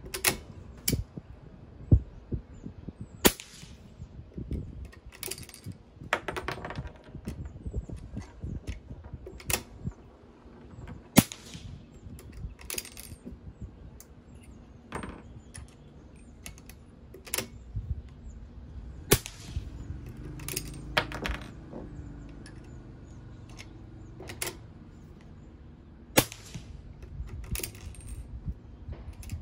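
A suppressed Ruger No. 1 single-shot rifle in .300 Blackout firing a series of shots, a few seconds apart. Between the shots come the clacks of its falling-block action being opened and closed and spent cases dropping onto the wooden bench.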